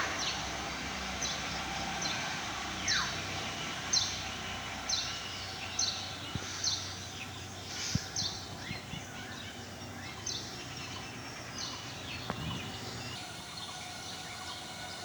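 A bird calling in a series of short, high notes about once a second, with a couple of falling notes near the start, over steady background noise.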